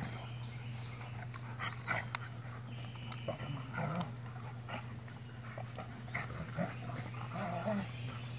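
Airedale Terrier adults and puppies roughhousing, making scattered brief yips and play noises over a steady low hum.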